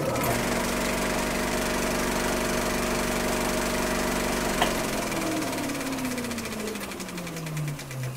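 A small motor-driven machine running with a fast, even clatter and a steady hum; about halfway through there is a click and it winds down, its pitch falling steadily.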